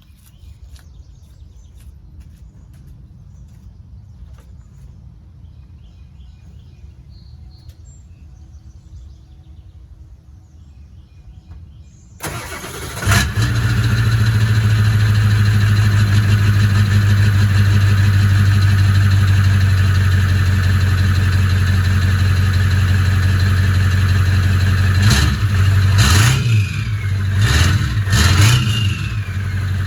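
A 1997 Ford 7.3 L Power Stroke turbodiesel V8 fitted with a KC stage 2 turbo cranks and starts about twelve seconds in, then idles steadily. Near the end it is revved a few times, and the turbo's whistle rises and then falls away after each rev. Before the start there is only a low steady rumble.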